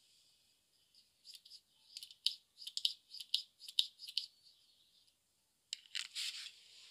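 Small plastic toy doll accessories, such as toy scissors and hair clips, clicking and rattling against each other as they are handled. A quick run of light clicks starts about a second in, and a second cluster comes near the end.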